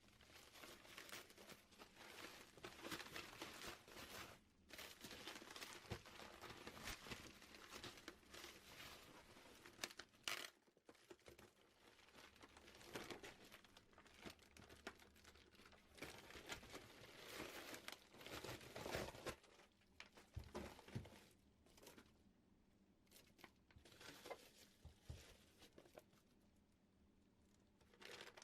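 Packaging crinkling and rustling in a series of handling noises as a boxed electronic load is unwrapped, with a few sharp clicks; it goes quieter for a few seconds near the end.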